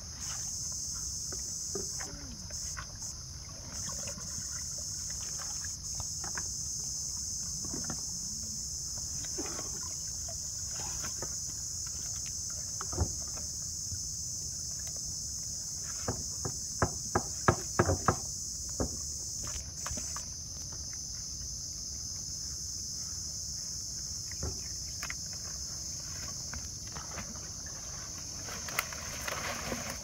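Steady high-pitched chirring of insects, with the rustle and knocks of a wet fish-trap net and its catch being handled over a plastic bucket in a wooden boat. A quick run of sharp knocks comes about halfway through.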